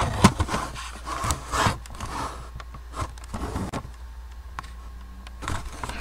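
Handling noise from a camera being carried and swung around: irregular rubbing and scraping with scattered clicks and knocks, busiest in the first couple of seconds.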